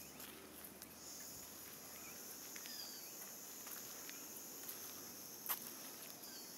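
A steady, high-pitched chorus of insects shrilling in the trees. A few soft clicks are scattered through it, with one sharper click about five and a half seconds in.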